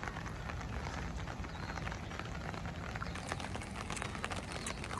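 Rain falling in many fine patters and ticks over a steady low rumble of wind buffeting the microphone.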